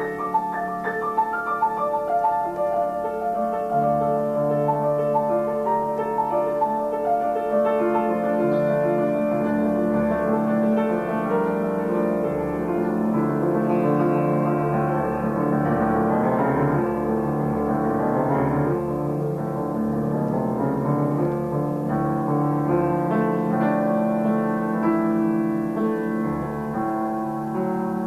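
Grand piano played solo: a dense, many-voiced piece with fast runs sweeping up and down around the middle.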